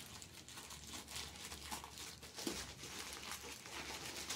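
Faint crinkling and rustling of packaging being handled, a string of small irregular crackles.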